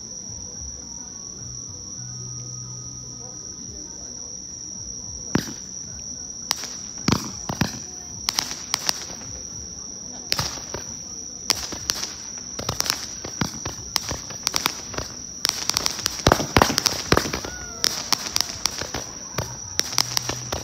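Small toy firework spraying sparks, giving sharp crackling pops that begin about five seconds in and grow denser toward the end. A steady high insect trill runs underneath.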